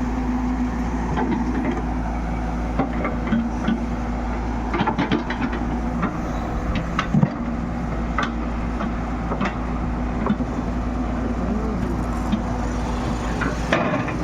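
Diesel engine of a heavy earthmoving machine running steadily under work, with scattered sharp knocks and clanks over it.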